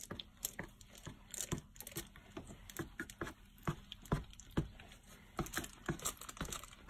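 Soft, irregular clicks and taps, a few a second, of a spatula's handle working the top of freshly poured soap batter in a mould.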